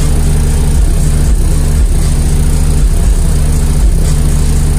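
BlackBrick BB3v2 12-inch subwoofer in a wooden box playing bass-heavy music very loud inside a vehicle, deep repeating bass notes pounding steadily.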